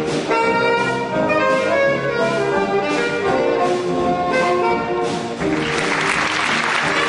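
Jazz big band playing: brass and saxophone sections over piano and drum kit, with regular beats from the drums. About five and a half seconds in, a bright hissing wash joins and carries on under the horns.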